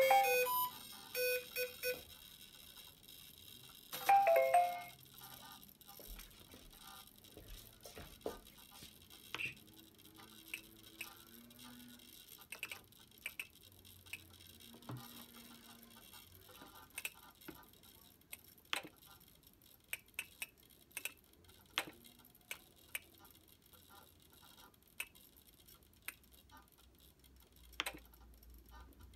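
Start-up beeps from a freshly powered RC helicopter's Kontronik Kolibri 140 ESC: a quick run of short electronic tones at the start and a second, rising group about four seconds in. After that come faint, scattered clicks as a radio transmitter's scroll wheel and buttons are worked.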